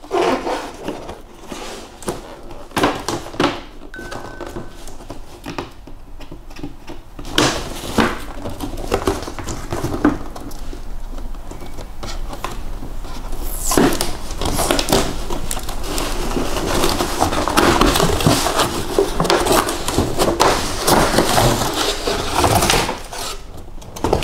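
Cardboard packaging being handled and opened: scattered knocks and taps, then from about halfway a dense rustling and scraping as the inner cardboard tray is slid out of the box.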